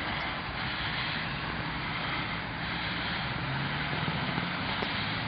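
Steady street traffic noise, with a low engine hum coming up in the second half.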